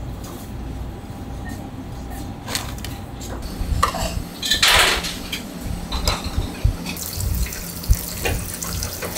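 Commercial kitchen at work: knocks and clinks of lacquered soup bowls and lids set down on a steel counter over a steady low hum of kitchen equipment, with a short loud rush of noise about halfway and a hiss, like running water, that grows stronger in the last couple of seconds.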